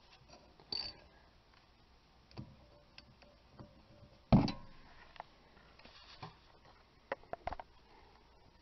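Scattered light clicks and metallic taps from a ratchet and socket working a rear brake caliper's 7mm hex-head guide pin bolt loose, with one louder knock about four seconds in.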